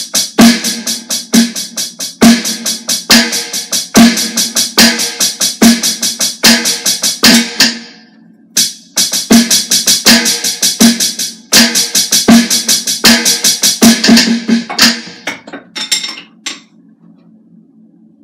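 Electronic drum kit played in a steady groove, with cymbals over a regular beat. The playing breaks off briefly about eight seconds in, resumes, then thins to a few scattered hits and stops near the end, leaving a low steady hum.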